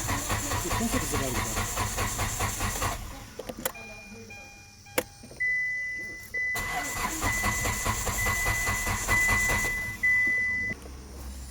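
A car's starter motor cranks the engine in a rapid, even rhythm for about four seconds and stops without the engine catching. After a couple of clicks and short beeps, it cranks again for about three seconds while a high electronic beep repeats. This is typical of an immobiliser that does not recognise the key and blocks the engine from starting.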